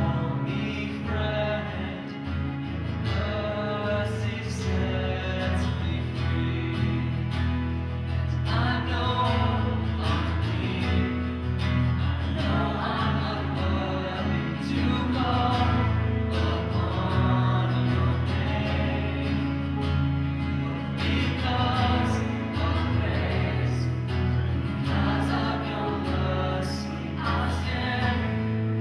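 Live worship band playing a song: a male lead vocal with other voices singing along, over strummed acoustic and electric guitars and sustained low notes.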